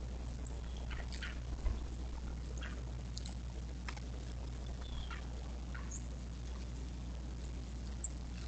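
Small birds chirping: scattered short, high calls and a few brief falling notes, over a steady low hum. A single low thump about two seconds in.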